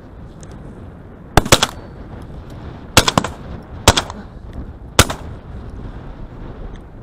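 Shotgun fire at a flock of flying ducks: four loud shots spread over about four seconds, the first two each followed closely by a softer second report.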